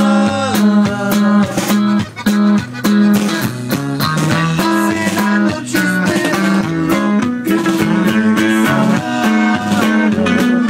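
Live band playing an instrumental passage with no vocals: guitar over a bass line, with a steady drum beat.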